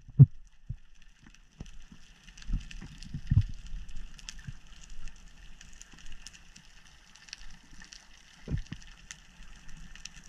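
Underwater ambience picked up through a camera housing: a steady fine crackling with scattered sharp ticks, typical of snapping shrimp on a seagrass bed. Dull low thumps come about 2.5 and 3.5 seconds in and again near 8.5 seconds.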